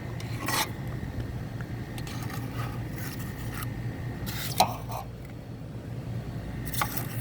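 Three short scraping sounds over a steady low hum.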